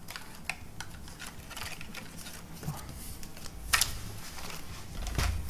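Board-game cards and cardboard pieces being handled on a table: scattered light taps and clicks, with a sharper click a little under four seconds in.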